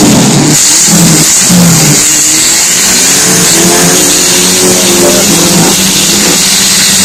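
Several banger race car engines revving hard at once on a dirt track, their pitch climbing and dropping as the drivers work the throttle, over a constant noisy hiss.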